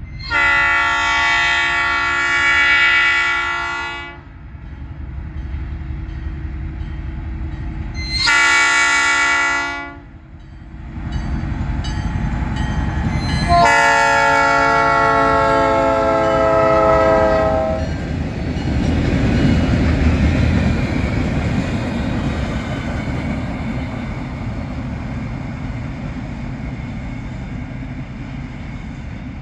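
A diesel freight locomotive's multi-chime horn sounds three times: a long blast of about four seconds, a short blast about eight seconds in, and another long blast from about fourteen seconds in that dips slightly in pitch as it ends. The locomotive and train then rumble steadily past, slowly fading.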